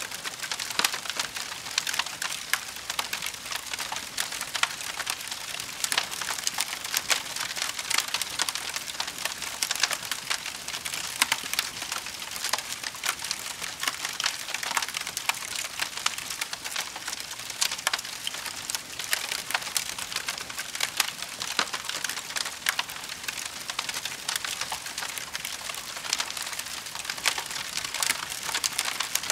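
Wood campfire burning with continuous dense crackling and frequent sharp pops over a steady hiss.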